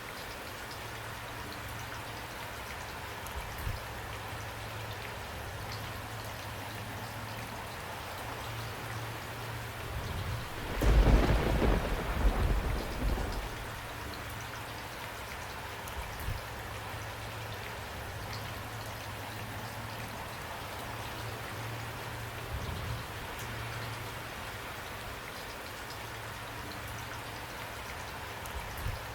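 Steady rain falling, with a rumble of thunder about ten seconds in that swells and dies away over roughly three seconds.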